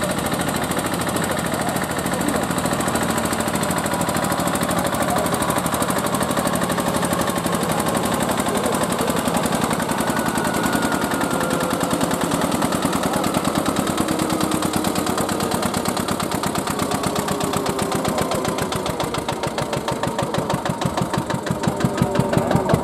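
Small vintage diesel tractor engine running under load with a fast, steady chugging beat, as in a tractor pull. Near the end the beat slows and the level dips, then grows louder again.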